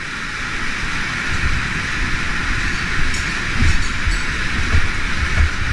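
Canyon stream rushing through a narrow rock slot: a steady, loud hiss of falling water, with low rumbling bumps on the microphone from about a second and a half in.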